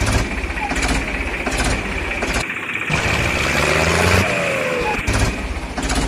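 Recorded tractor-engine sound effect: a steady engine drone with a high whine, the same stretch repeating about every five seconds and dropping out briefly about halfway through.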